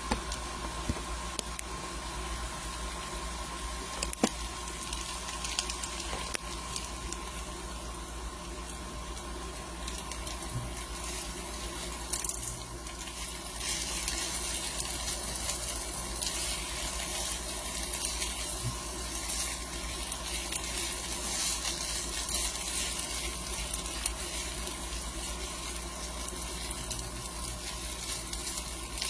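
Potatoes frying in a pan of oil: a steady sizzle with fine crackling that grows busier from about a third of the way in.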